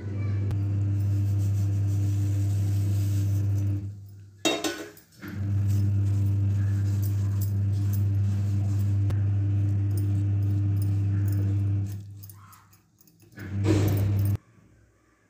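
A steady low electrical hum that cuts out abruptly twice and comes back, with short bursts of rattling and scraping about four and a half seconds in and again near the end.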